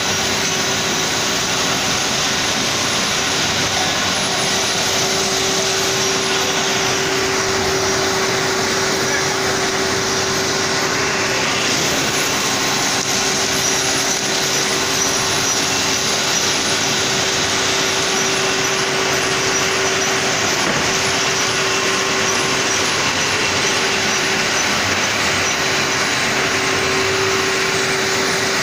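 Plastic extrusion-coating lamination line running: a loud, steady machine noise from its rollers and drives, with one constant tone running through it.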